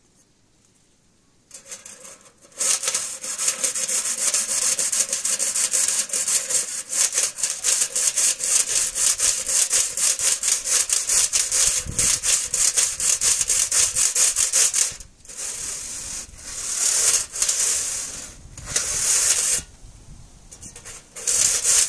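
Soot and burnt tar being scraped out of a stovepipe in quick back-and-forth strokes. The scraping starts about two seconds in and breaks off briefly twice near the end.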